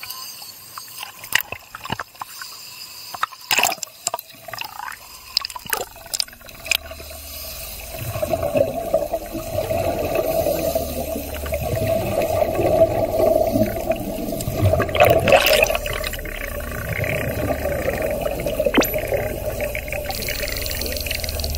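Sea water splashing and sloshing around a camera housing at the surface. About eight seconds in, it gives way to a louder muffled underwater rumble with bubbling from scuba divers' exhaled air.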